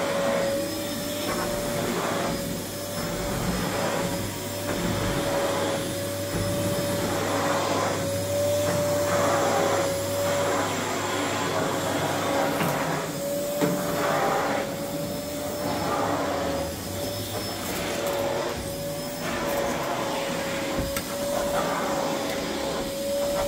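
Canister vacuum cleaner running steadily with a constant motor whine, its rushing air noise swelling and fading every second or two as the floor nozzle is pushed back and forth over a rug.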